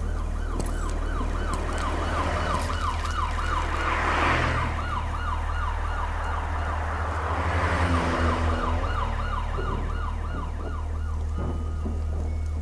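Siren-like electronic warble rising and falling about three times a second over a steady deep bass drone, with two whooshing swells about four and eight seconds in. The warble stops shortly before the end.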